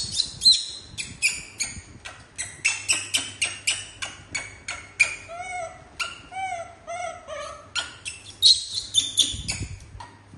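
Young macaque screaming in a rapid string of short, high-pitched shrieks, several a second, with lower arching cries about halfway through: a monkey screaming impatiently to be fed its snack.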